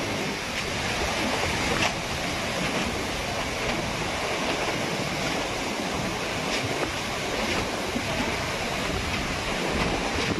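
Cyclone-force wind blowing steadily through palm trees, with heavy buffeting rumble on the phone microphone.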